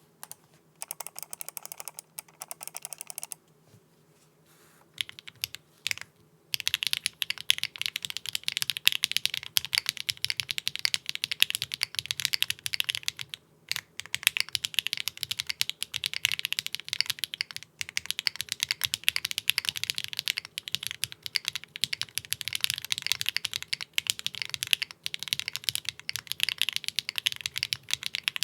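Typing on a TGR x Linworks Dolice mechanical keyboard with HMX Sunset Gleam linear switches, a UHMWPE plate and no case foam. A quick burst of rapid keystrokes, a pause of about three seconds with a few stray clicks, then steady continuous typing with a short break about halfway through.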